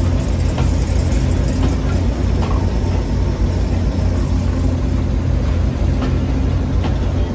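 Heritage railway passenger coaches rolling past along the platform: a steady low rumble of wheels on rails, with a few scattered clicks.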